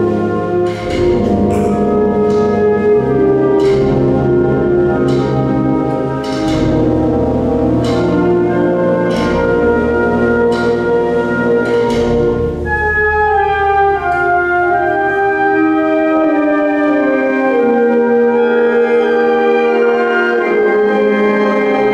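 Symphonic wind band playing a Spanish Holy Week processional march: brass and woodwinds over a steady drum beat of strokes a little under a second apart. About halfway the drums and low brass drop out, leaving held higher wind chords that step downward.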